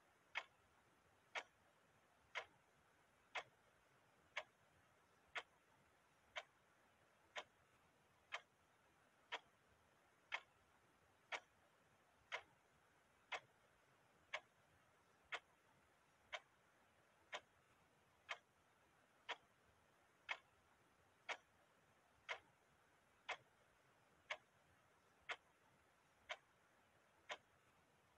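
Clock ticking steadily, one short sharp tick each second.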